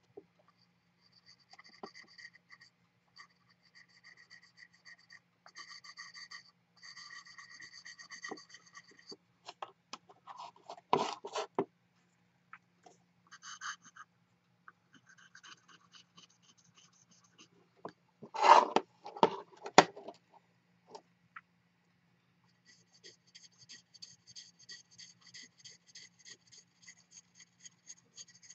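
A small fine-grit (3000) sanding stone rubbed in quick short strokes over lacquer on the chipped rim of a porcelain bowl: a light, rhythmic scratching that comes in spells. A few louder knocks stand out, once about ten seconds in and twice more around two-thirds of the way through.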